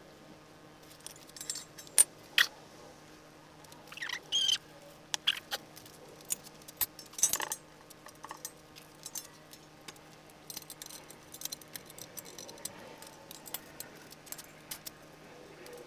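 Small metal parts and hand tools clinking and tapping at irregular intervals, typical of bolts, nuts and steel pieces being handled while a hydraulic press is put together. A faint steady hum sits underneath.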